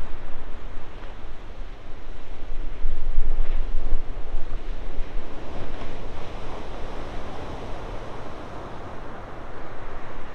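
Ocean surf breaking in a steady rush of white noise, with wind buffeting the microphone as a low rumble; it swells louder about three seconds in.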